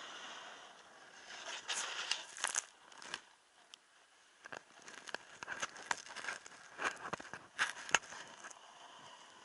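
Edges scraping and crackling over hard-packed groomed snow during turns, in irregular bursts with a quieter stretch about three seconds in.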